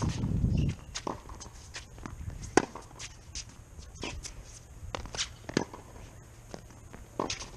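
Tennis ball being struck and bouncing on a hard court during a hitting rally: sharp pops at uneven intervals, the loudest about two and a half seconds in, with footsteps on the court.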